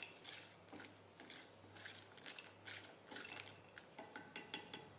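Spoon stirring whole spices and cashew nuts in oil in a bowl: faint repeated scrapes, several a second, with a few sharper clicks near the end.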